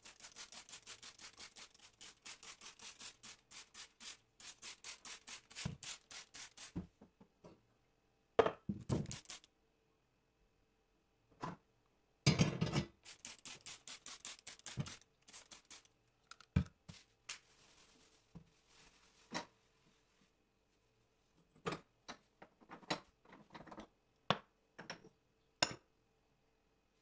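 Cleaning a gas hob: a fast run of short hisses from a trigger spray bottle, a few loud metal knocks as the pan supports are lifted off and set down, another run of quick strokes, then scattered light clicks and knocks.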